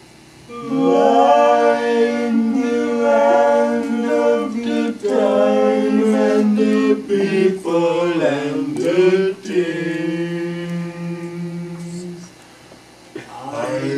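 Several voices singing long held notes together, with no instruments, sliding up in pitch near the start and wavering through slides about eight seconds in. The singing drops away briefly shortly before the end, then comes back.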